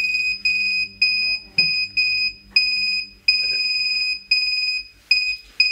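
REM pod proximity alarm going off: a high electronic beep sounding again and again in uneven pulses, some short and some held for about a second. The device has been triggered, which the investigators take as a spirit's response.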